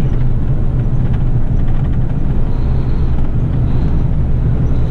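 Heavy rigid truck's diesel engine and road noise under way, a steady low drone.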